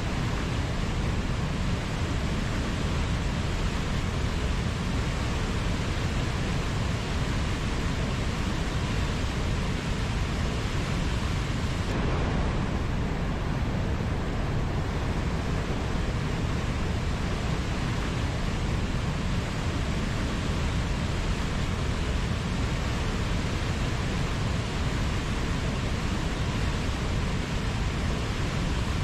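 Waterfall: a steady, unbroken rush of falling water, deepest and strongest in the low end, with no let-up.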